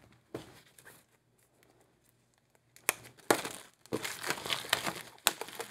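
Clear plastic shrink wrap being crinkled and torn off a hardcover journal. A few soft handling sounds come first, then dense crackling begins about three seconds in.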